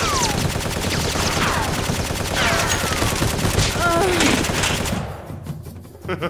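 Rapid automatic gunfire sound effect, a sustained burst with a few short sliding tones over it, stopping about five seconds in.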